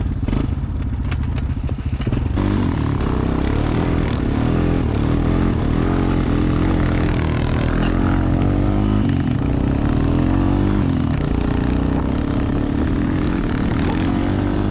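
ATV engine idling with an even pulse, then throttled up about two seconds in and running under load, its pitch rising and falling with the throttle as the quad is ridden.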